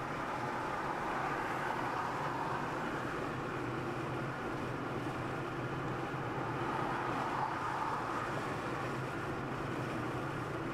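Steady road noise of a car driving, with a low engine hum underneath.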